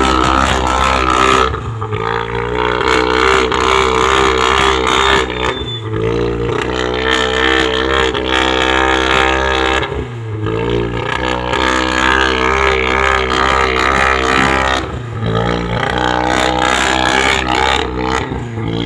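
Volkswagen Golf 7R's turbocharged 2.0-litre four-cylinder engine and exhaust running loud under load. The note changes pitch in steps several times, with short dips in loudness about 2, 10 and 15 seconds in.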